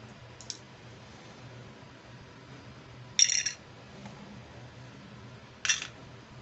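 Small plastic toy accessories being handled: a faint click, then two short, sharp clicking rattles, the loudest about three seconds in and the other near the end.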